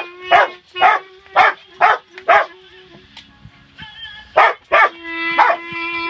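A Rottweiler barks along with a clarinet, sounding short yelping barks about twice a second over a steady held clarinet note. Around the middle the barks stop briefly while the clarinet plays a few lower notes, and then they start again.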